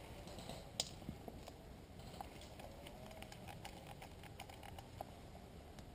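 Faint rustling and scattered light clicks of a player moving through dry forest leaf litter with an airsoft rifle, the sharpest tick about a second in.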